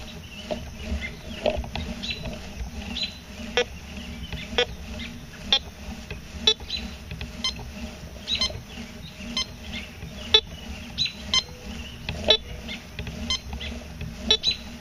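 Fisher F2 metal detector, in all-metal mode at full sensitivity, giving short beeps about once a second as the coil is swept back and forth over a deeply buried coin. The signal comes in as a high-conductivity target, read as dime to quarter, and the high tone marks a good target.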